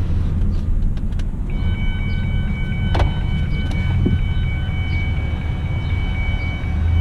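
Low, steady engine and road rumble inside the 2003 Ford Escape's cabin while driving. From about a second and a half in, the seatbelt warning chime sounds as a high, rapidly pulsing tone that stops near the end. There is a sharp click about three seconds in.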